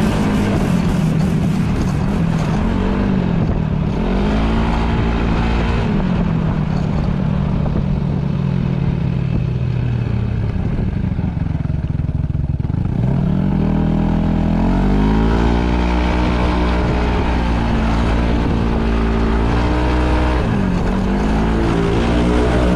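Yamaha Majesty S 155 cc scooter's single-cylinder engine heard from on board while riding, its pitch rising and falling with the throttle. It drops away about eleven seconds in, climbs back and holds steady, then dips briefly near the end.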